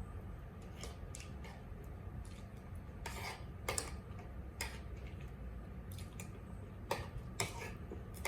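Spoon and fork clinking and scraping on a plate while eating, with a scatter of short clicks, the sharpest a few seconds in and again near the end.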